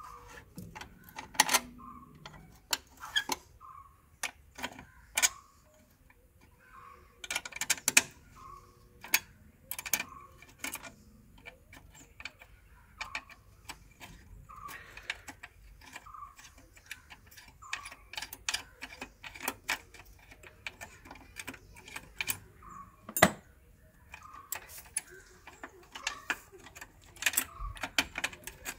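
Metal clicks and clinks of an open-end spanner working the nut on a car battery's hold-down clamp, loosening it, with the loose clamp and bolt rattling. Behind them, a faint short chirp repeats about once a second.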